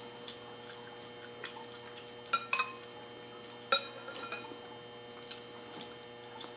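Metal spoon clinking against a ceramic soup bowl while scooping taro root soup: a few short ringing clinks, the loudest about two and a half seconds in and another near four seconds.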